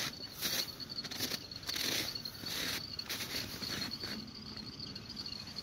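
Footsteps crunching on packed snow, a step about every half second to second, with a faint steady high-pitched whine underneath.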